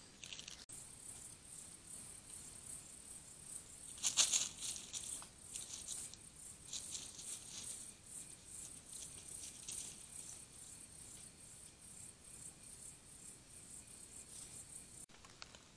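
Night insects trilling in a high, rapidly pulsing chorus that starts within the first second, with a short, louder scratchy noise about four seconds in.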